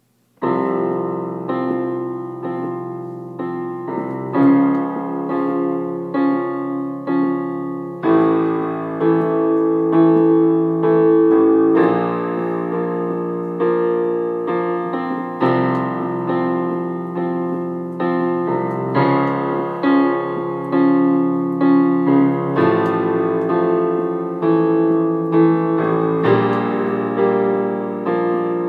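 Electronic keyboard played in a piano voice, starting about half a second in: repeated struck chords, the harmony changing every few seconds.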